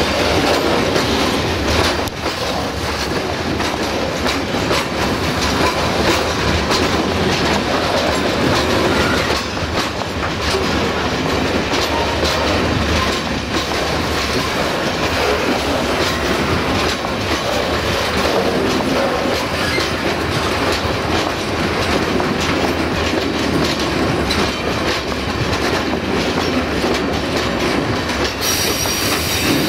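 Covered hopper wagons of a freight train rolling past close by, their wheels clattering over the rail joints in a steady rumble, with a little wheel squeal.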